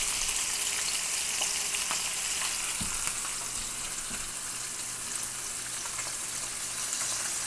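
Flour-coated trout frying in a pan of hot oil: a steady sizzle, with a few faint clicks and a soft bump about three seconds in.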